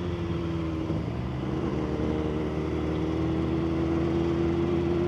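BMW S1000RR's inline-four engine running under way at a fairly steady speed. Its pitch dips slightly about a second in, then slowly rises.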